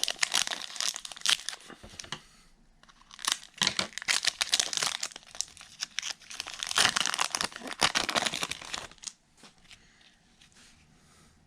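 Wrapper of a trading card pack crinkling and tearing as it is ripped open, in three bouts of crackling over about nine seconds.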